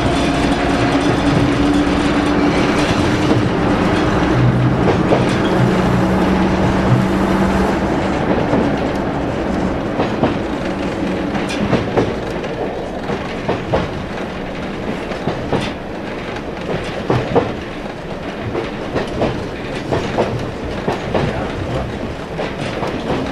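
Heritage diesel railcar heard from inside the passenger saloon: its engine runs with a steady note for the first several seconds, then eases off and the sound drops a little, leaving wheels clicking irregularly over rail joints in a clickety-clack.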